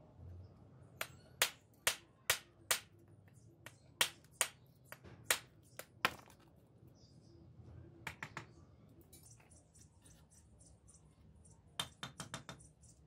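Steel hammer striking a fired clay brick, about a dozen sharp knocks in the first six seconds as the brick is chipped to size in the hand, three more around eight seconds in, then a quick run of taps near the end as the hammer knocks bricks into place on the top course.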